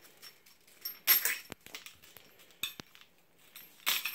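Small metal clinks and knocks from hardware being handled, with a rustling burst about a second in and another near the end.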